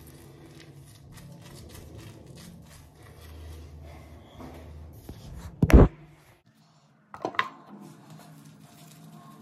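Soft rubbing and scrubbing of a handheld facial cleansing brush on lathered skin, over a low steady hum. A little past the middle comes a loud bump, the sound drops out for under a second, then there is a sharper knock.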